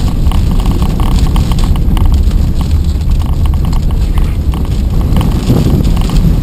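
Loud low rumble of a vehicle driving through wind and rain, with rain spattering and knocking on the windshield and body in irregular bursts.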